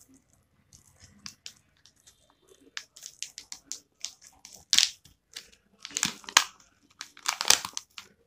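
Clear plastic pouch crinkling and crackling as hands pull at its sealed edge to open it. The crackles are sparse at first, then come thicker and louder from about halfway through, with the loudest bursts near the end.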